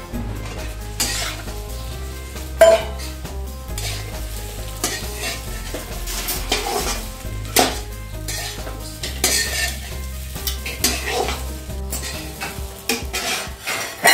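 A spatula stirring and scraping in a pan of frying potatoes and soaked sabudana (sago pearls), with irregular scrapes over a steady sizzle.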